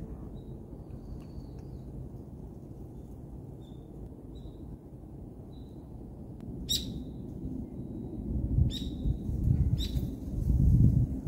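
Small birds chirping in short high notes every second or so, with a few sharper calls in the second half, over a low rumble that swells near the end.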